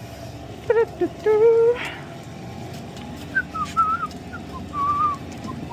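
A person whistling a short, wavering run of notes in the second half, after a brief wordless hum-like vocal sound about a second in.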